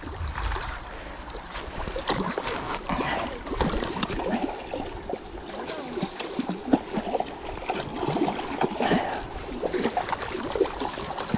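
Shallow trout stream running over a rocky riffle, with irregular splashes and sloshing of water.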